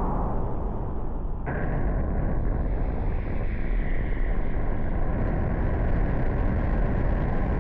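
Strong wind buffeting the microphone in a steady low rumble. A brighter hiss joins about a second and a half in and holds through the rest.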